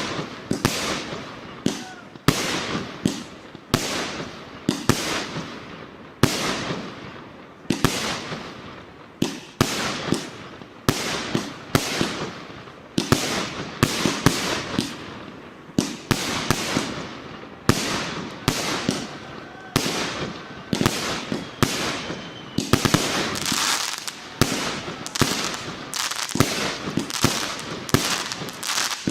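A 100-shot, 1.2-inch fireworks cake firing in a continuous run: sharp launches and aerial bursts coming roughly one to two a second, each with a short fading tail.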